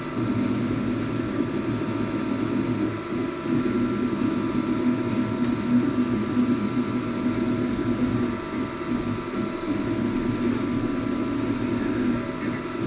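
3D printer running: a steady mechanical hum with a few constant whining tones over it.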